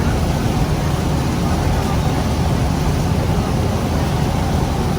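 Steady low drone and rushing noise of a Thames Clippers river-bus catamaran under way, its engines running with no change in speed.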